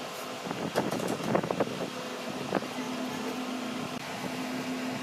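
A steady machine hum with a cluster of sharp clicks and knocks about a second in, and one more knock a little later.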